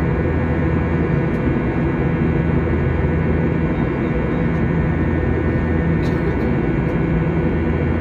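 Steady mechanical drone, even in pitch and level throughout.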